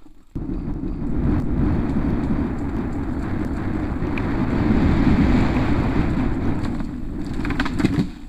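Wind buffeting an action camera's microphone, mixed with the rumble of mountain bike tyres on a dry dirt trail during a fast downhill descent. A few rattling knocks come near the end, and the sound cuts off abruptly.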